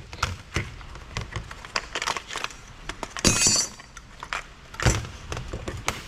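Metal and circuit-board parts of a stripped stereo power amplifier being handled: scattered knocks and clinks, with a brief metallic rattle about three seconds in.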